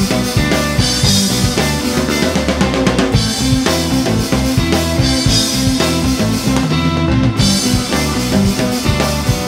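Live rock band playing an instrumental passage, with a prominent drum kit (kick, snare and rimshots) over electric bass and guitar.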